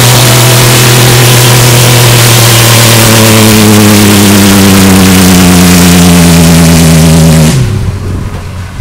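Pickup truck engine held at high revs in a burnout, the rear tyres spinning on asphalt, loud and steady. About seven and a half seconds in the revs drop off abruptly and the sound falls away.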